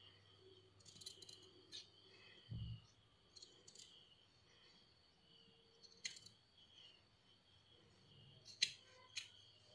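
Scissors snipping through folded cotton fabric: faint, scattered clicks of the blades closing, the sharpest two near the end, with a soft thump about two and a half seconds in.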